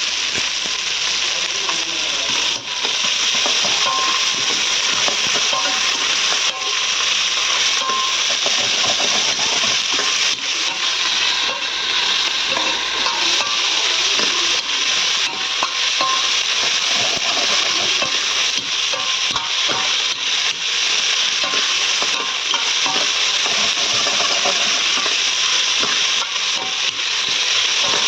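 Crushed shallots and onion sautéing in hot oil with fennel seeds, curry leaves, ginger and garlic, sizzling steadily while being stirred in the pan, with scattered light clicks of the spoon.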